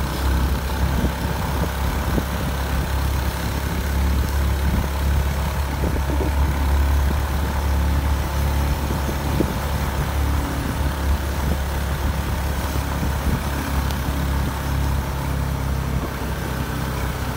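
Steady low rumble of a moving vehicle, engine and tyre noise on wet asphalt, heard from the vehicle that is filming.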